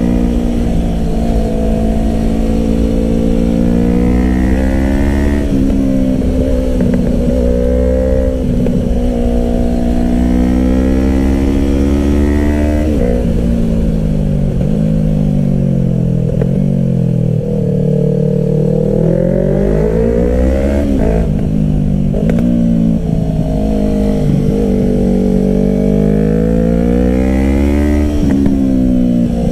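Yamaha R3's parallel-twin engine under way, rising in pitch as it accelerates and dropping back at each gear change. Several times the pitch climbs and then falls away sharply, with a stretch of easing off in the middle.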